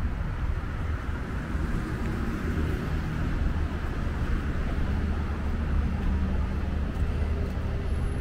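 City road traffic: a steady low engine hum with road noise.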